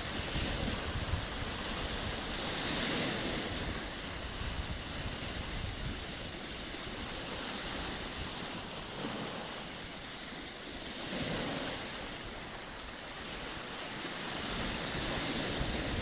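Black Sea surf breaking and washing over a pebble and stone beach, the wash swelling and ebbing with each wave every few seconds. Wind rumbles on the microphone at the start and again near the end.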